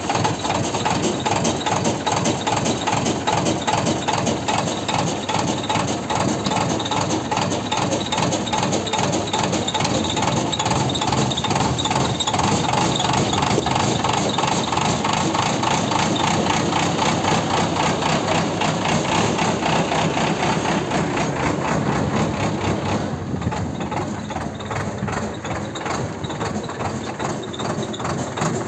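JCB backhoe loader's diesel engine running steadily with a fast, even chatter. It turns somewhat quieter for the last few seconds.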